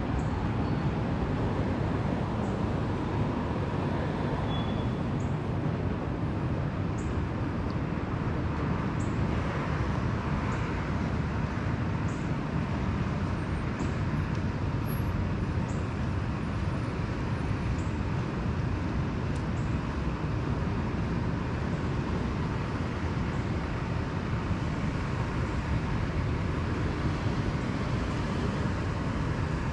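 City street traffic: a steady rumble of passing cars and other vehicles, with no single event standing out.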